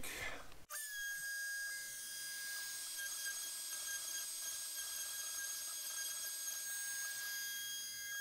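Spindle router of a Shapeoko 3XL CNC router starting about a second in and then running at a steady high-pitched whine.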